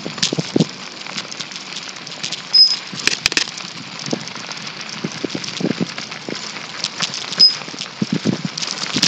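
Crackling, rattling noise of a bicycle ride on asphalt, with scattered small knocks and clicks. Two short high squeaks, the loudest sounds, come about two and a half seconds in and again near the end.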